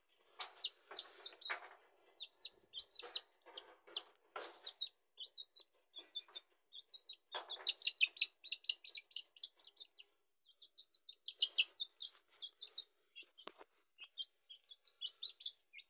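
A young chicken chick peeping loudly and rapidly, each peep a high note sliding downward, with a short pause about ten seconds in. Rattles and knocks of a wire cage come in among the peeps during the first few seconds and again near the middle.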